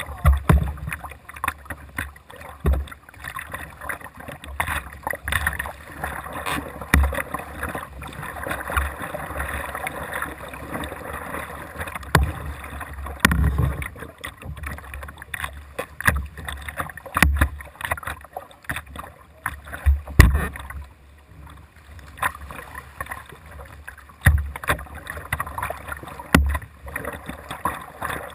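Kayak paddle strokes splashing and water washing along the plastic hull of a whitewater kayak, heard close up from the deck, with irregular low thumps.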